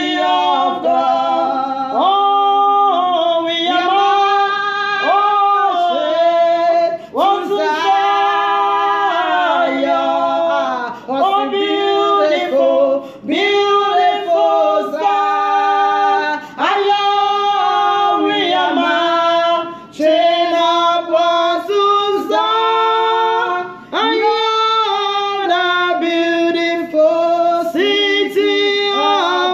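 Two women singing a worship song unaccompanied, in long held sung phrases with short breaks between them.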